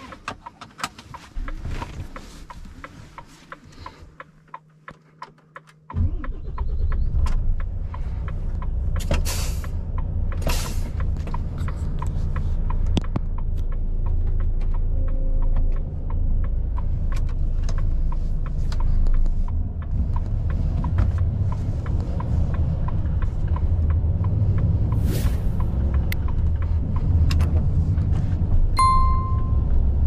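Volvo FH 460 truck's 13-litre six-cylinder diesel comes in suddenly about six seconds in and keeps running with a steady low rumble heard from the cab, with scattered clicks from cab controls and a short electronic beep near the end.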